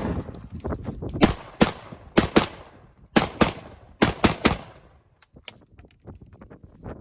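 Sharp clicks and knocks of a firearm and its magazine being handled, about nine of them, mostly in close pairs, over the first four and a half seconds, then fainter small ticks.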